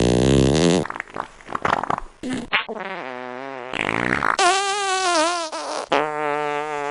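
A run of fart sound effects, about half a dozen cut one after another: a short buzzy one, a sputtering crackly one, then several longer pitched farts that waver up and down in pitch.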